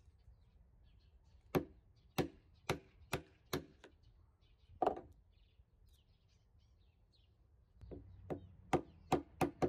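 Mallet striking a chisel, chopping the waste out of a box joint: five sharp knocks about half a second apart, a single one about five seconds in, then a quicker run of taps near the end.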